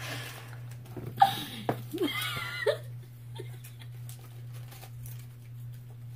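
A child's high wordless vocalizing with a wavering pitch, twice in the first three seconds, then faint taps and rustles of craft work, over a steady low hum.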